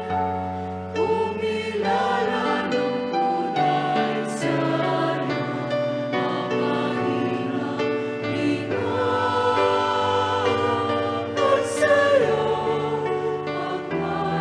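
Choir singing a Tagalog hymn to the Virgin Mary over sustained instrumental accompaniment.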